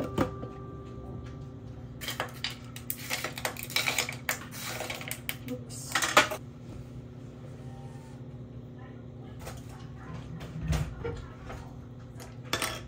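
Ice cubes dropped into a ceramic mug of oat milk, clinking and clattering in a quick run for about four seconds, the loudest clack near the end of the run. Later comes a single dull thump and one light knock.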